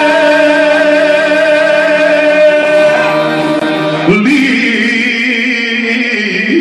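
Live Balkan folk song: a male singer holds a long note with vibrato over accordion accompaniment, then slides up into a new phrase about four seconds in.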